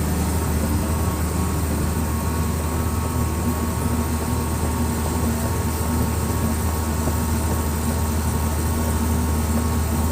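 Excavator's diesel engine running steadily with a constant low drone.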